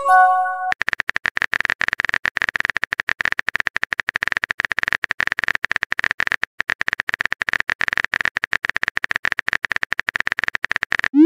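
Texting-app sound effects: a short multi-note chime as a message arrives, then rapid, evenly paced keyboard tapping clicks for about ten seconds. A quick rising whoosh comes right at the end.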